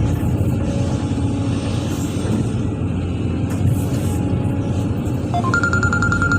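Excavator diesel engine running steadily with a low rumble. About five seconds in, an electronic ringtone-like melody starts: a few rising notes, then a rapid repeating beep.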